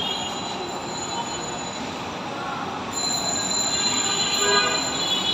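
Dhaka Metro Rail train running over a steady rumble, with a thin, high-pitched squeal that grows louder about three seconds in.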